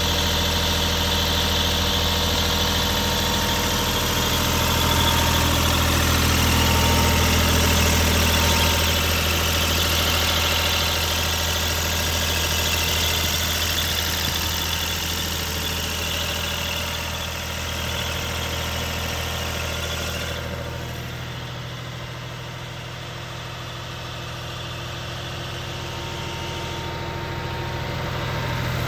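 Renault tractor's diesel engine idling steadily with its bonnet off. The sound drops in level about two-thirds of the way through, then comes back up near the end.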